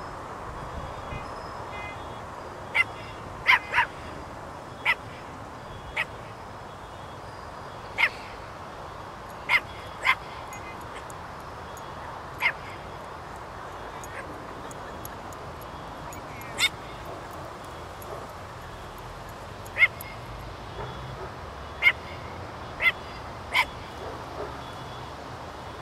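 Small dachshund barking: single short, sharp barks at irregular intervals, from about a second to several seconds apart, over a steady hiss.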